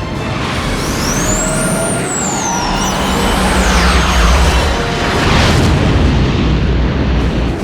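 Film score mixed with the sound of jet aircraft: high engine whines sweep up and down in pitch over a deep rumble that grows louder around the middle.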